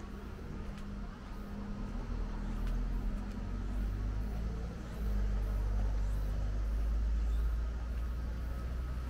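A road vehicle's engine running close by, a low rumble with a steady hum that grows louder partway through and eases off near the end.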